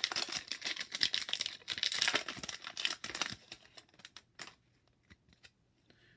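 Hockey card pack's foil wrapper crinkling and tearing as it is pulled open, dense and crackly for about three and a half seconds. After that come a few faint clicks and rustles as the cards inside are handled.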